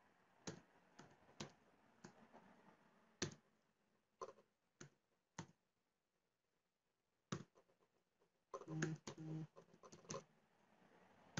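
Faint, scattered keystrokes on a computer keyboard, single keys with pauses between them, as a string of digits is typed. There is a quicker run of keys near the end.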